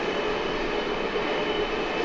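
Long iron ore train's wagons rolling along the track: a steady rolling noise with a thin, steady high whine over it.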